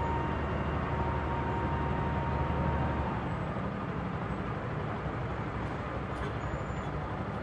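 Street traffic noise as cars drive past. A steady low hum and a thin steady high tone stop about three seconds in, and the even road noise carries on.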